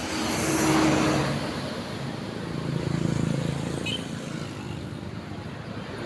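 Road traffic passing close by: engines running with tyre noise, swelling as vehicles go past about a second in and again around three seconds in.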